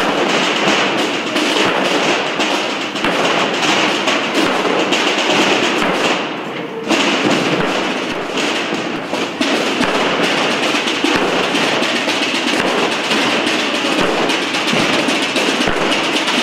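Massed procession drums beating together, a dense, continuous rolling drumming with deep thuds under a bright snare rattle. It thins briefly about six seconds in, then comes back in full.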